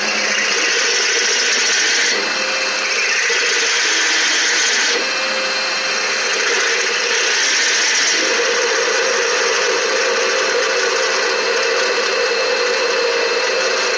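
CNC lathe running, its spindle turning brass bar stock while the cutting tool machines the part: a steady mechanical whir with a constant hum underneath. The sound shifts in level and pitch about two seconds in and again about five seconds in.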